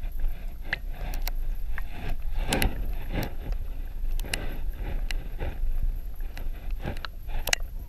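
Shallow water sloshing around a submerged camera: a low rumble broken by irregular sharp clicks and knocks.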